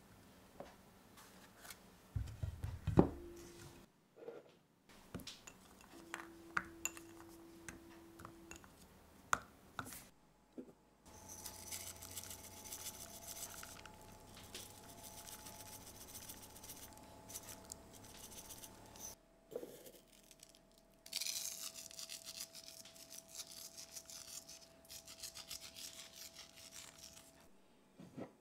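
Food-prep handling sounds: light knocks and clicks as squash halves are set into a metal pan and garlic cloves go in, then two long stretches of dry rasping and rubbing as seasoning is sprinkled over the squash.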